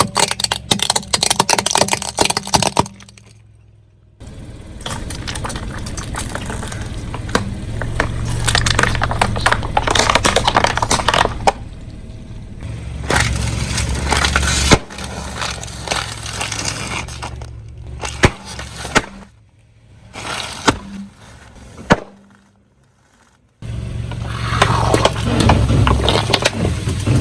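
Car tyre rolling over and crushing brittle objects: a dense run of cracks and snaps over a steady low hum, in several stretches broken by short quiet gaps.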